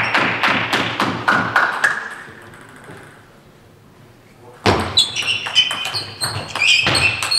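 Table tennis ball clicking off bats and table in a fast rally that starts about two-thirds of the way in, with a few short high squeaks. It is preceded by a run of clicks in the first two seconds and a short lull.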